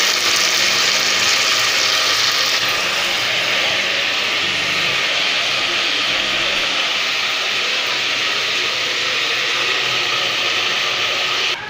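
Chicken pieces frying in oil in a pot, with a steady, even sizzle that cuts off suddenly near the end.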